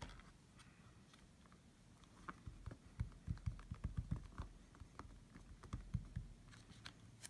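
Soft, irregular tapping and knocking from hand stamping work, a stamp and ink pad being handled at a stamp positioner. The taps come about three or four a second, starting about two seconds in and running for some four seconds.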